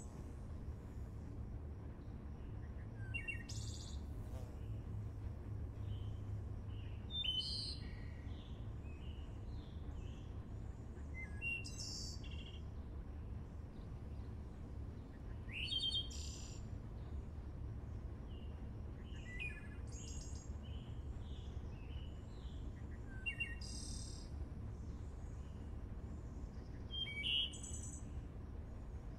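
A songbird singing short, high chirping phrases, one about every four seconds, over a low steady rumble.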